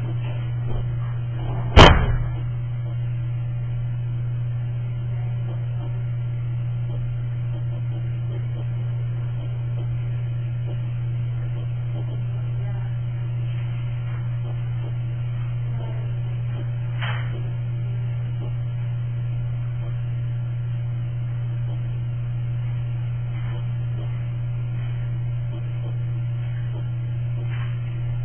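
Steady low electrical hum, with one sharp knock about two seconds in and a fainter click later on.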